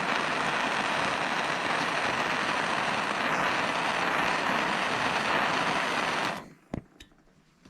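Handheld gas torch flame hissing steadily while it heats a battery lug to melt solder into it, shut off about six seconds in; a couple of short clicks follow.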